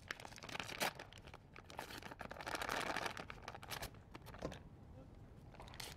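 Paper wrappers being peeled and torn off sticks of butter: irregular crinkling and tearing of the paper, loudest about two to three seconds in.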